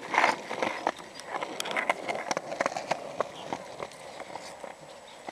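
Footsteps moving quickly along a path: a run of irregular steps and scuffs with sharp clicks among them.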